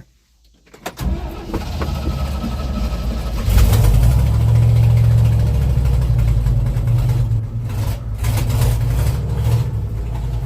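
An old log truck's engine being started with the choke pulled out. It cranks for a couple of seconds, catches about three and a half seconds in and revs up, then keeps running.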